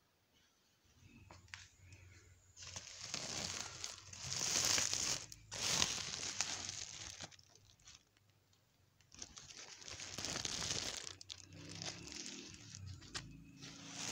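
Woven plastic feed sacks crinkling and rustling as they are handled by hand, in bouts with a short lull about halfway through.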